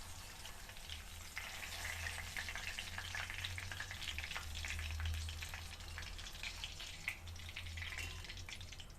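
Green chillies frying in hot oil in a kadai, a steady sizzle full of small crackles that grows stronger about a second and a half in. A steady low hum runs underneath.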